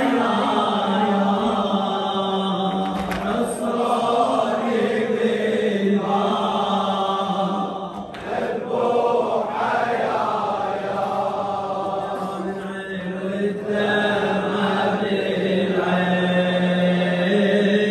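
A male radood chanting a Shia latmiya lament for Fatima al-Zahra through a microphone, in long held notes with a short break about eight seconds in.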